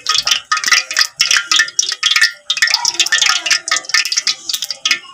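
Rapid tinkling of chime-like ringing tones, several light strikes a second.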